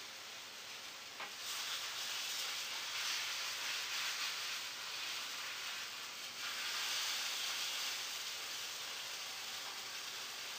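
Cod back fillet frying in a pan: a steady sizzle that grows louder about a second in, eases briefly around six seconds, then swells again.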